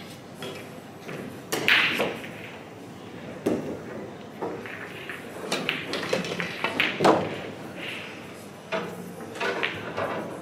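Sharp clicks of pool balls echoing in a large hall: a cue tip striking the cue ball and balls knocking together, the loudest click about seven seconds in, among several other scattered clicks.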